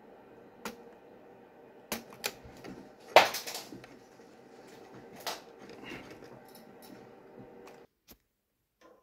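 Scattered sharp clicks and knocks of laptop chassis parts being handled, the loudest a short clatter about three seconds in, over a faint steady hum; the sound cuts off suddenly near the end.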